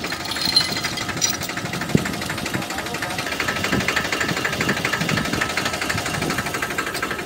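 Farmtrac 45 Smart tractor's three-cylinder diesel engine idling steadily, with a quick, even beat of firing pulses.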